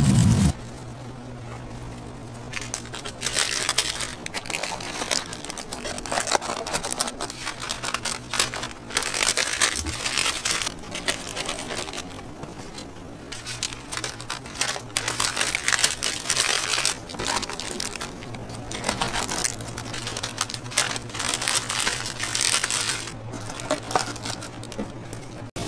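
Paper wrapper rustling and crinkling in irregular bursts as a burger is wrapped by hand, over a faint steady low hum.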